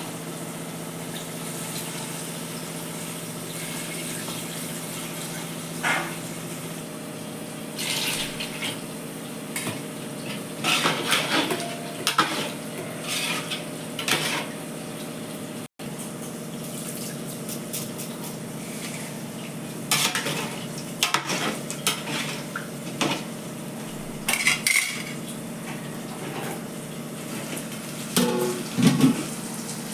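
Metal cooking pots and utensils clinking and clattering in scattered, irregular bursts, loudest near the end, over a steady background hum.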